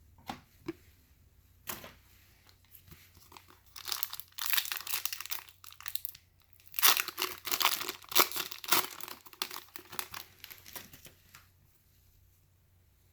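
A trading card pack wrapper being torn open and crinkled by hand, after a few light taps. The rustling and tearing come in two spells, the second and louder one near the middle.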